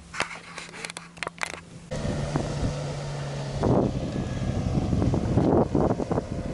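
A few sharp clicks, then about two seconds in a sudden switch to a motorboat engine running steadily, with heavy wind noise on the microphone.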